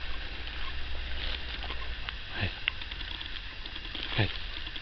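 Footsteps rustling and crackling through dry crop stubble, with two short calls that drop steeply in pitch, one about halfway through and one near the end.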